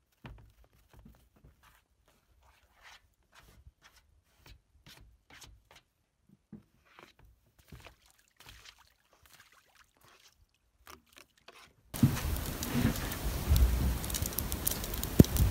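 Snow being brushed and scraped off an aluminum boat's cabin roof and windows by hand, in short irregular soft strokes. About twelve seconds in, this gives way suddenly to a loud, steady rushing noise with a low rumble.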